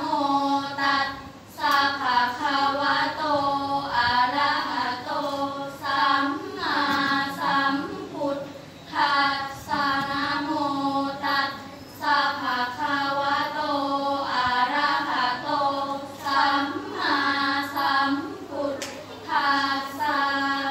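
A group of five girls chanting Buddhist verses in praise of the Triple Gem in unison, in the Thai sarabhanya melody: sung phrases of a second or two, each followed by a short pause for breath.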